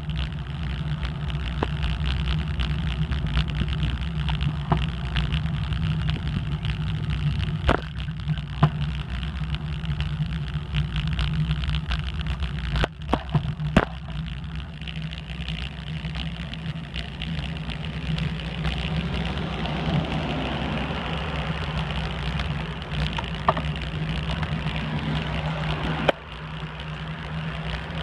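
Steady low hum and rumble of a bicycle rolling along a paved street, picked up by a phone at the handlebars with wind on the microphone. Sharp rattles or clicks come through a few times, around 8 s, 13–14 s and 26 s in.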